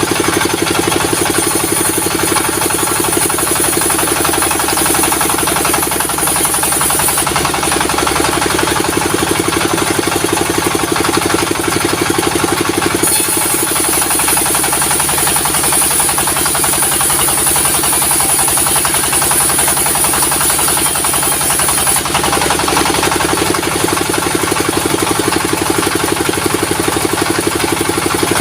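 Sawmill's diesel engine running steadily with a fast, even knock. Twice, for several seconds each time, a high hiss swells over it as the saw cuts through the wood.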